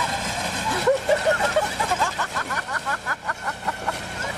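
A person laughing, a quick run of high-pitched giggles from about two seconds in.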